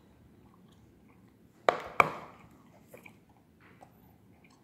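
Two sharp knocks about a third of a second apart as a round refrigerator magnet is set down on a wooden tabletop, followed by a few faint taps.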